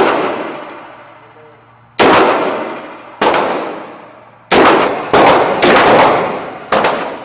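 Six single gunshots, spaced unevenly about half a second to a second and a half apart, each ringing out in a long echoing decay.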